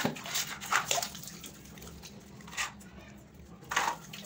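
Water splashing in a few short bursts, about four times, on a tiled washroom floor as someone washes.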